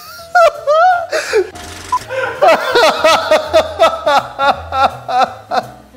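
A man laughing hard: a few gasping vocal sounds, then from about two seconds in a rapid string of short 'ha' bursts, about five a second.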